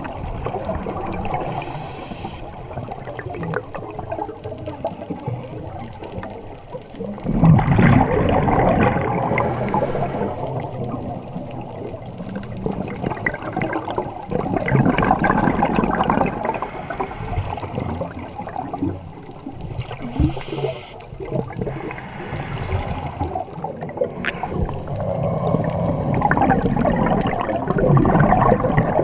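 Scuba diver breathing through a regulator underwater: a short hiss on each inhale, then a long burst of bubbling exhaust bubbles on each exhale, about three breaths.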